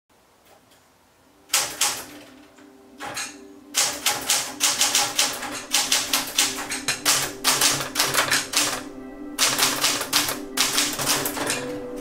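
Typewriter keys being struck: after a quiet start, a single keystroke, then another, then fast runs of typing with a brief pause near the end.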